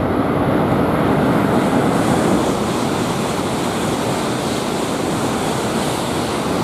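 Tohoku Shinkansen train of a coupled E2 series and E3 series set running along the platform close by: a steady rushing of wheels and air, a little louder in the first half.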